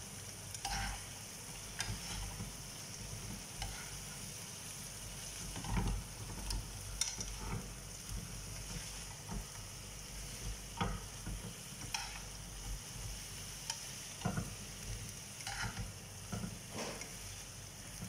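Chicken wings sizzling in a ketchup-and-honey sauce in a frying pan, with a steady hiss, while a spoon and slotted spatula stir and toss them, making irregular scrapes and clicks against the pan.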